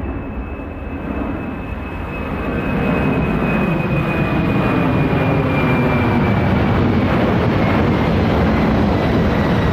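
Airplane passing overhead: a rushing engine noise that grows louder over the first three seconds and then holds, with a thin high whine slowly falling in pitch.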